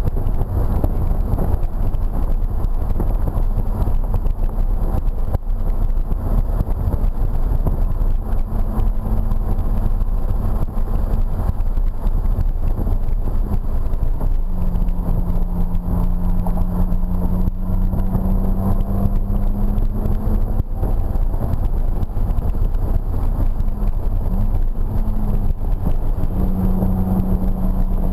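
BMW E46 M3's straight-six engine running hard on track, heard from inside the cabin over steady road and wind noise; its note shifts in pitch several times as the car accelerates and slows.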